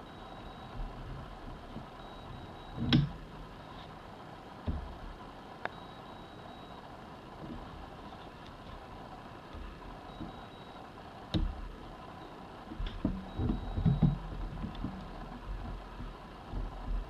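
Domestic electric sewing machine running slowly and stopping and starting while it sews a rolled hem through a hem folder. A few sharp knocks come through, and there is a cluster of low thuds about thirteen to fourteen seconds in.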